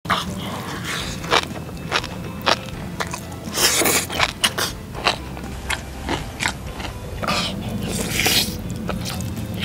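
A person eating bibimbap with egg and seasoned vegetables in large mouthfuls: wet chewing and crisp biting, with many short clicks and snaps. There are two longer slurping sounds, about four and eight seconds in, over a steady low hum.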